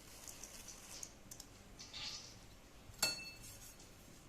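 Faint rustling of cumin seeds being rubbed between the hands and dropped into flour, then one sharp clink of kitchenware with a short ring about three seconds in.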